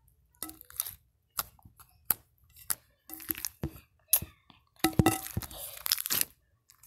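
Irregular crackling and crunching: short crisp snaps, some single and some in quick clusters, with the busiest and loudest stretch about five seconds in.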